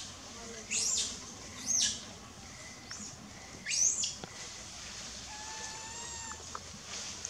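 Short, high-pitched animal calls: three sharp chirps that sweep up and fall back, about a second apart and again near four seconds, then a steady whistled tone held for over a second.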